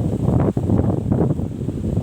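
Wind buffeting the microphone: a loud, gusty low rumble with a brief dip about half a second in.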